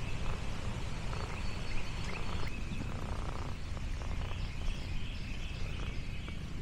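Outdoor countryside ambience: a steady low rumble with faint, scattered high chirps.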